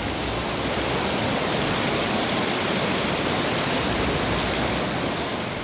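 Muddy floodwater rushing steadily past, a loud, even rushing noise with no breaks.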